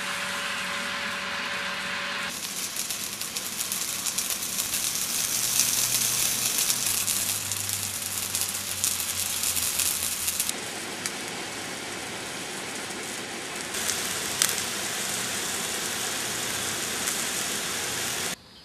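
Pop-up lawn sprinkler spraying water, a steady hiss, heard in several clips joined by abrupt cuts about two, ten and fourteen seconds in. In the first couple of seconds a steady tone sits under the hiss.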